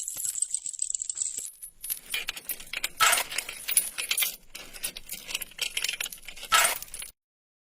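Clinking and rattling of small hard objects: a dense run of quick clicks and jangles. It opens over a steady high hiss that stops after about a second and a half, and cuts off suddenly near the end.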